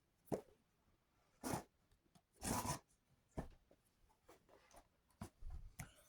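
Handling noises: a string of sharp clicks and knocks and short rustles as small devices and their packaging are picked up and set down, the longest rustle a little past halfway through.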